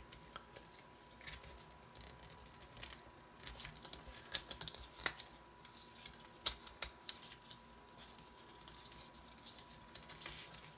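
Plastic pieces of a twist puzzle figure clicking and rattling as they are turned by hand: faint, irregular clicks, busiest in the middle.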